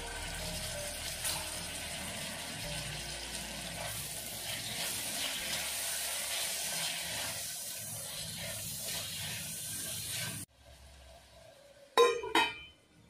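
Chopped onions and tomatoes sizzling steadily in hot oil in a soapstone kalachetti as they are stirred. The sizzling cuts off suddenly, and about a second and a half later come two sharp metallic clinks from a steel plate being handled.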